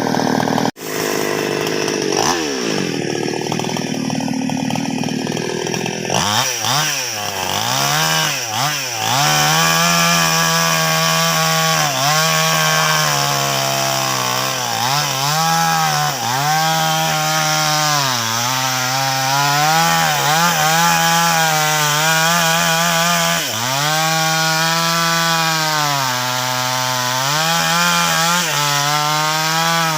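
Two-stroke chainsaw cutting into a large sengon log. From about six seconds in, the engine's pitch sags under load and recovers every couple of seconds as the chain bites into the wood.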